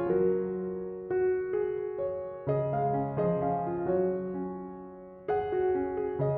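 Background piano music: chords struck about once a second and left to ring and die away.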